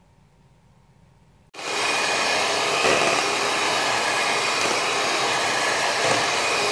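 Electric hand mixer running at a steady speed, its beaters whipping a thick mixture in a stainless steel bowl. It cuts in abruptly about a second and a half in.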